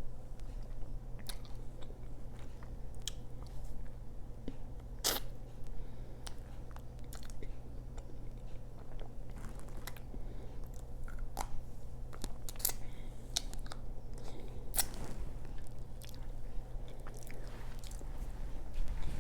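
Close-miked eating of a chocolate-coated ice cream bar: the crisp chocolate shell cracking in sharp snaps under bites, with chewing and mouth sounds in between.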